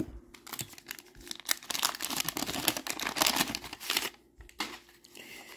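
Wax-paper wrapper of a 1990 Bowman baseball card pack crinkling and tearing as it is pulled open and crumpled in the hands. There is a dense crackle of many small snaps for about three and a half seconds, which dies down near the end.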